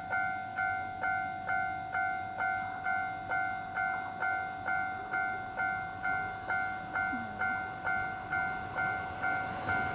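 Japanese railway level-crossing alarm ringing: an electronic warning bell struck over and over at an even pace of about two strikes a second, the signal that a train is approaching. Near the end the rumble of the approaching train starts to rise under it.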